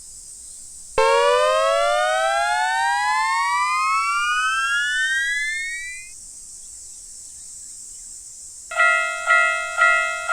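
A cartoon sound effect: a tone comes in suddenly and rises steadily in pitch for about five seconds, then stops. Near the end, a railroad crossing warning bell starts ringing at about two strokes a second.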